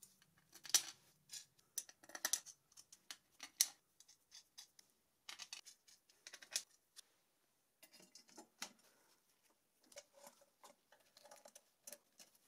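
Irregular small clicks and light scrapes of M5 bolts and T-nuts being fitted through an acrylic side plate by hand. Near the end a hex key works the bolts into the aluminium frame.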